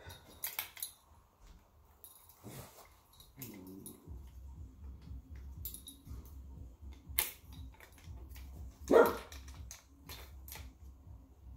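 A dog barks once, loudly, about nine seconds in, after a faint whine earlier on. Light clicks and taps from the speargun's shaft and line being handled fall in between.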